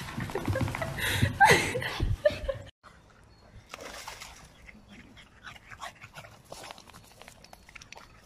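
A dog whining and yelping through the loud first few seconds, with calls that fall in pitch. The sound cuts off suddenly, then gives way to quieter scattered scuffling and rustling.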